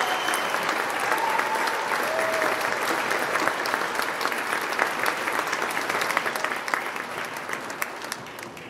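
Audience applauding, many hands clapping, with a few voices calling out in the first couple of seconds; the applause dies away near the end.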